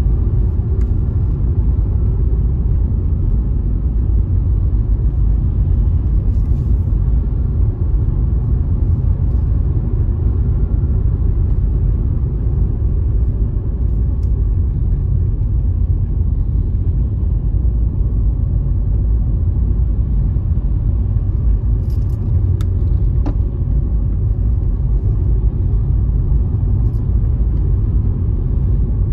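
A car driving along a road: a steady, low rumble of engine and road noise.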